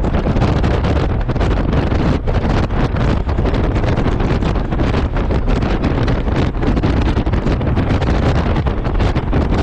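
Loud, steady wind buffeting the microphone of a rider on a moving Honda Gold Wing motorcycle, heaviest in the low rumble.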